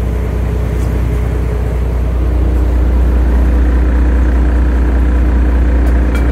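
Fishing boat's engine running steadily, a loud low drone with a steady hum above it.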